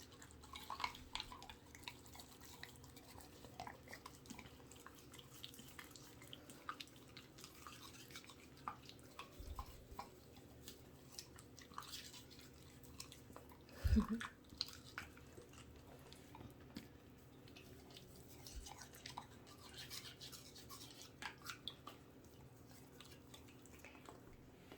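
Toothbrush scrubbing a dog's teeth in small circles: faint, scratchy brushing with many small ticks of bristles against teeth. A single louder thump comes about halfway through.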